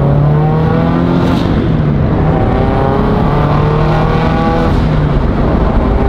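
Turbocharged Scion FR-S's flat-four engine running loudly. The engine note holds fairly steady, with slight rises and dips in pitch.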